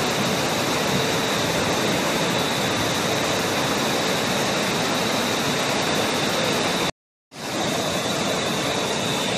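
Fast-flowing flash floodwater rushing down a street, a steady loud rush of water. The sound cuts out completely for a split second about seven seconds in.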